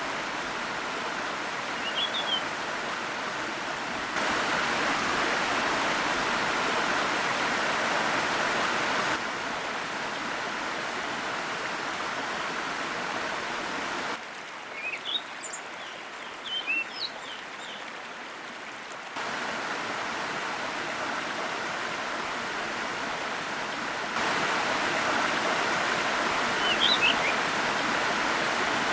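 Steady rush of a forest waterfall, its loudness shifting in sudden steps every five seconds or so and quietest in the middle. Small birds chirp briefly above it near the start, several times in the quieter middle stretch, and once near the end.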